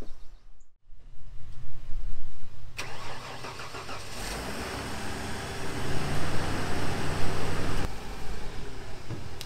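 Ford F-150's 4.9-litre inline-six, freshly rebuilt after a blown head gasket, starting up suddenly about three seconds in and running, its pitch rising for a couple of seconds as it is revved before it settles back.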